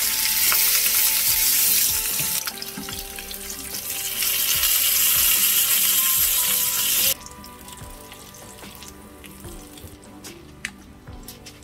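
Pork neck steak and a sausage sizzling loudly in a frying pan, with metal tongs clicking as they are turned. The sizzle cuts off abruptly about seven seconds in, leaving a quiet simmer with light pops and ticks. Faint background music is under it.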